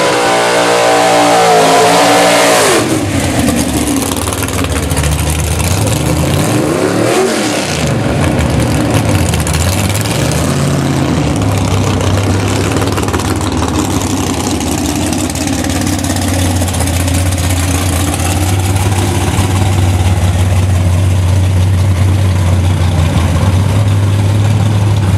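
Drag cars' engines at the strip: one revs up hard and holds high for the first few seconds, another rev rises and falls about a quarter of the way in, then a steady, deep idle runs on.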